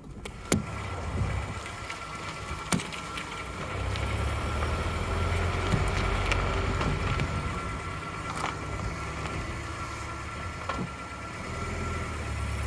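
1992 Toyota pickup running while its steering is worked to full lock, a steady low engine rumble that swells and eases twice, with a few sharp clicks and no groan or pop from the steering stops: the new steering stop caps have cured the noise.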